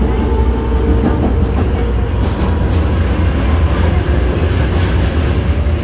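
Osaka Metro 22 series subway car running, heard from inside the passenger cabin: a steady low rumble of wheels on rail with a faint motor whine. A few wheel clicks over rail joints come about two to three seconds in.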